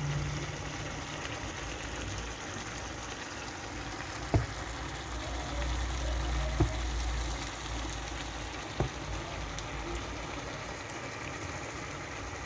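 Pancake batter sizzling steadily in a frying pan, with three sharp knocks a couple of seconds apart.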